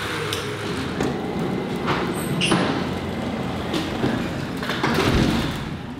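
Paper and cellophane wrapping of a bouquet of roses crinkling as it is handled, with irregular sharper crackles over a steady background noise.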